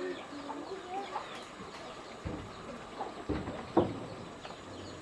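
Chickens clucking, with a few sharp knocks: one about two seconds in, another after three seconds, and the loudest just before four seconds.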